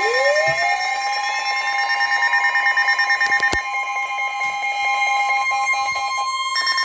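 NOAA Weather Radio warning alarm tone: a steady, loud tone near 1 kHz, layered with other steady alarm tones and a pulsing beat, signalling that a severe weather warning is about to be read. A rising sweep comes in at the start, and there is a sharp click midway.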